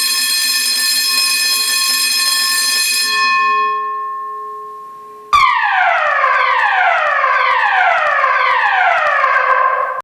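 A building fire alarm system's sounders: a steady alarm tone fades away over the first few seconds. About five seconds in, the evacuation signal starts abruptly, a tone falling from high to low and repeating about once a second, the DIN 33404-3 style emergency tone.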